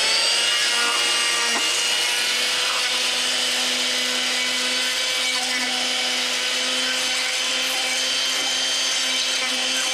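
Handheld electric stick blender running steadily at full speed with a constant whine, pureeing chopped vegetables with oil and vinegar in a plastic bucket.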